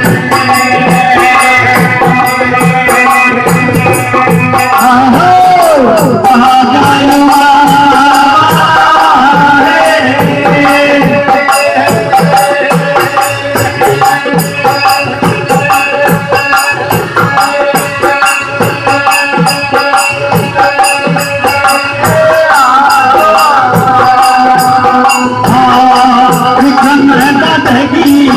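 Live Rajasthani devotional bhajan music: sustained keyboard-style melody lines over a steady hand-drum beat, with constant jingling percussion on top and a sliding pitch bend about five seconds in.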